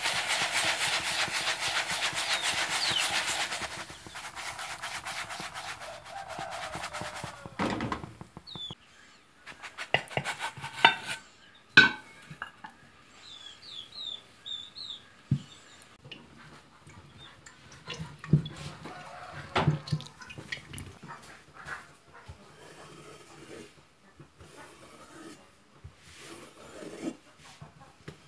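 Sausage-filled pastry frying in hot oil in a pan, a steady sizzle with fine crackle that stops about seven seconds in. After that come scattered knocks and clatter, the loudest about twelve seconds in, with a few short bird chirps.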